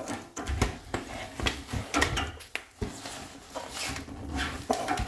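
Clear plastic shower door bottom seal being pushed and slid onto the bottom edge of a glass door: irregular clicks and rubbing of plastic on glass, with a few light knocks.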